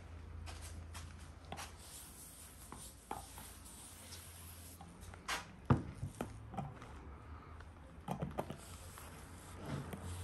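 Glass jars being handled with a cloth and set down on a wooden board: scattered light knocks and cloth rustles, with one sharp knock about six seconds in and a few more near the end.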